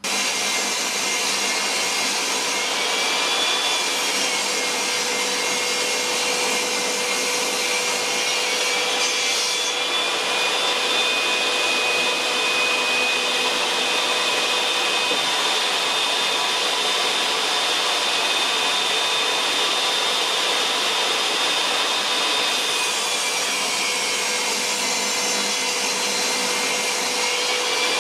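Vacuum cleaner motor running steadily with a high whine, which rises in pitch about ten seconds in and drops back after about twenty-two seconds.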